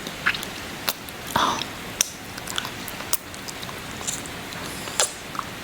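Close-up wet kissing and lip-smacking mouth sounds: short, irregular smacks and clicks, about one every half second, over a steady background hiss of rain.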